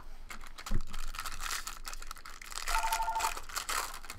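Trading-card packaging being torn open and crinkled, with clicks and one sharp knock just under a second in. A telephone rings briefly about three seconds in.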